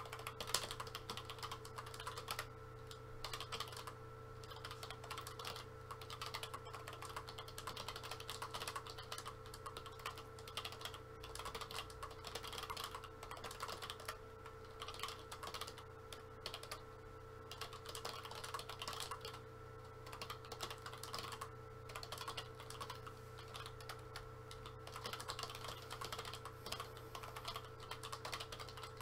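Faint computer keyboard typing: runs of quick keystrokes broken by short pauses, over a steady hum.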